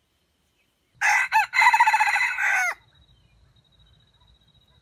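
Red junglefowl rooster crowing once: a short first note, then a longer held call that falls away at the end, lasting under two seconds.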